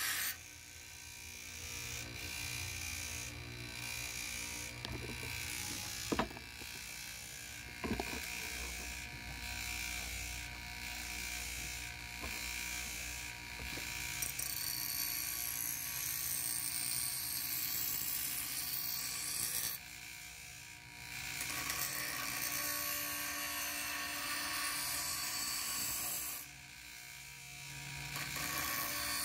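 Bauer 6-inch bench grinder running while a steel kukri blade is pressed against the wheel, the grinding hiss rising and falling between passes and dropping away twice when the blade is lifted off. Two sharp knocks about six and eight seconds in.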